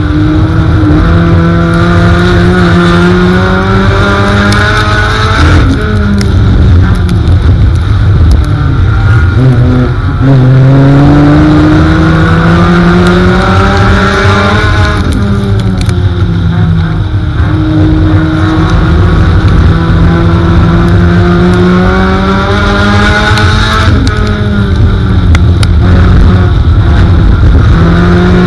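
Four-cylinder race car engine heard from inside the cockpit, climbing steadily in pitch for several seconds along each straight, then dropping sharply as the throttle is lifted for the turns. The cycle comes round again and again.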